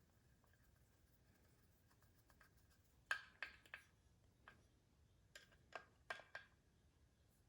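Faint scattered clicks and taps of a screwdriver and small screws being driven in to hold an LED board in a light fixture: a quick group of three about three seconds in and several more around five to six seconds in.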